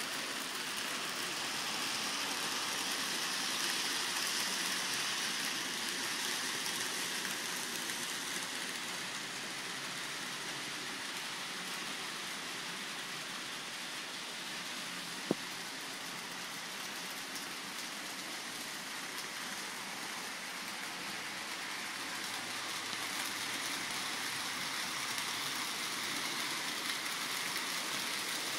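N scale model trains running on the layout's track, a steady hiss-like whirr, with one sharp click about fifteen seconds in.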